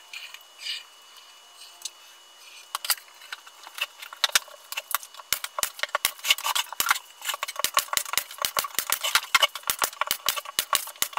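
Brad nailer firing nail after nail into the edge of a pine drawer box, fastening its plywood bottom. The shots come as a quick string of sharp clicks, several a second, starting about three seconds in.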